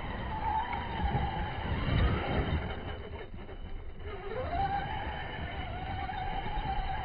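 ARRMA Big Rock 6S RC monster truck's brushless electric motor whining under throttle. It drops off about three seconds in and winds back up a second later as the throttle is reapplied. Under the whine is a rumble and gritty noise of the tyres scrabbling through loose dirt.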